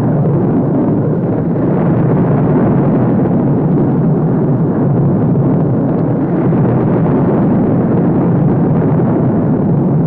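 Star Wars Star Destroyer exterior engine sound effect: a steady, deep, even noise with no change in pitch or level, made as a loopable background track.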